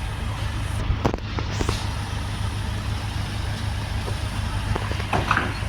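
Tractor engine running steadily with a low drone, with a few sharp knocks about a second in and again near the end.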